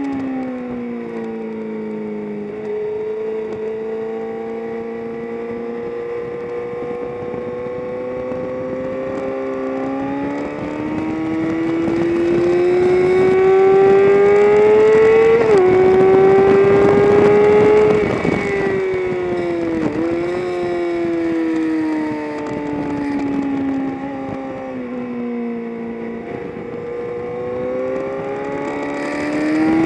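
Engine of a vehicle lapping a race track, heard onboard. The revs climb steadily and drop at an upshift about fifteen seconds in. They then fall away through braking and downshifts, with a quick blip around twenty seconds, and climb again near the end. A rushing noise of wind and road is loudest at the highest speed, in the middle.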